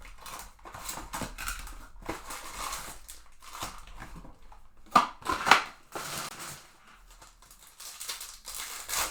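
Trading card packs and cards being handled: irregular rustling and crinkling of foil pack wrappers and cards, with two sharp crinkles about five seconds in.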